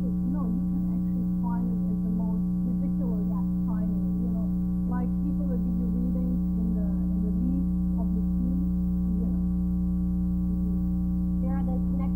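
Loud, steady electrical hum with a stack of buzzing overtones, over a woman's voice talking faintly beneath it.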